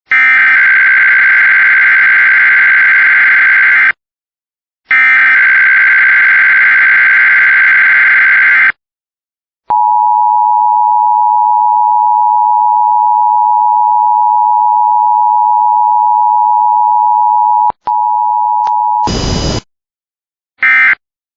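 Emergency Alert System tones: two long buzzing SAME header data bursts, then the EAS attention signal, a steady two-tone (853 and 960 Hz) beep held for about nine seconds with a brief dropout near its end. A short harsh burst of noise follows, then two short end-of-message data bursts near the end.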